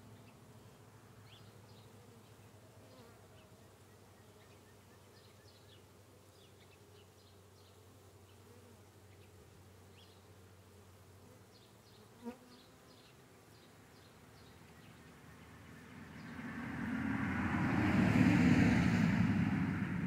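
Honeybees buzzing around a hive entrance. It is faint at first, then a bee's buzz swells loud close to the microphone in the last few seconds and starts to fade. There is a single short click about twelve seconds in.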